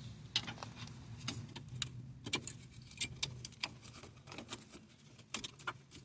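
Irregular light metallic clinks and clicks of hand tools on metal as a car's front brake caliper is unbolted.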